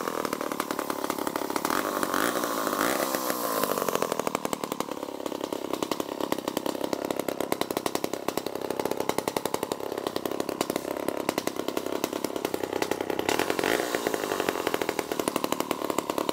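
An old two-stroke chainsaw with a Lawson Power Products (Tecumseh) engine running at speed, its pitch sagging briefly about four seconds in before picking back up.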